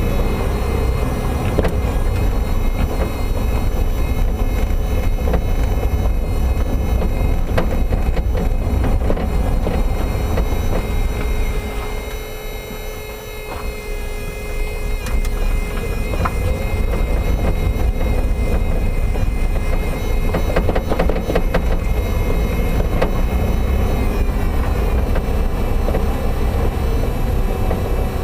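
Toyota MR2 Spyder on the move, with a steady rumble and a whine from the power steering pump. Over this come repeated sharp knocks and clunks, clustered about 8 and 20 seconds in, from the right-hand BC Racing BR-type coilover: the suspension knock the owner is chasing.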